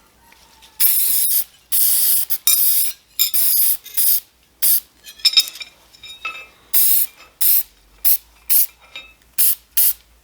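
Aerosol can of rust inhibitor spraying in over a dozen short hissing bursts, the early ones about half a second long and the later ones quicker spurts.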